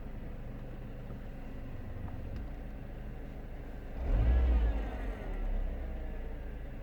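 Renault Kangoo 1.4 petrol engine idling, then blipped about four seconds in: the revs jump up and fall back to idle over about two seconds. The revs are dropped like this to listen for a knock that the owner hears as they fall from about 2000 to 1000 rpm.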